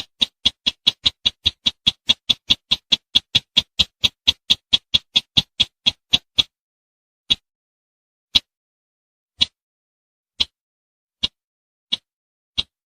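Sintar bird call: a fast run of short, sharp notes, about five a second, that breaks about six seconds in into single notes roughly a second apart, with the fast run starting again at the very end.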